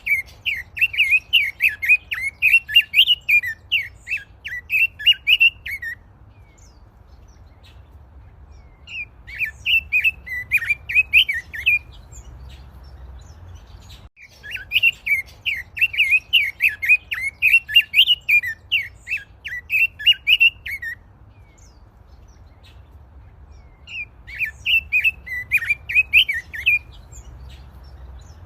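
A songbird singing in four bouts of rapid, chirping song, each a few seconds long, with pauses of about two to three seconds between them, over a faint low hum.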